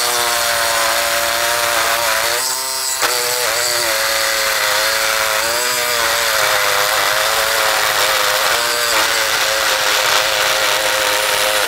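Bosch corded jigsaw cutting through a 2x4 board. The motor and blade run loud and steady, and the pitch wavers up and down as the blade works through the wood. It cuts off suddenly at the end.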